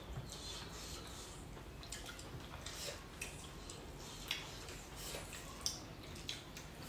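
People eating with their hands: quiet chewing and wet mouth smacks, with scattered small clicks.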